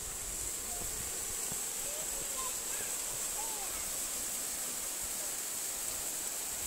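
A tall, narrow waterfall rushing: a steady, even noise of falling water.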